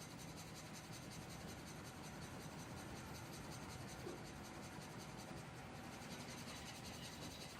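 Faint, steady background noise with no distinct events.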